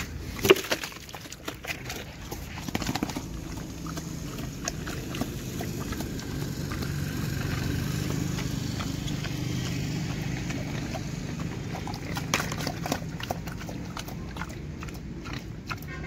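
A pig eating a mash of chopped leaves and rice from a metal bowl. A sharp knock about half a second in and footsteps on dry dirt near the start.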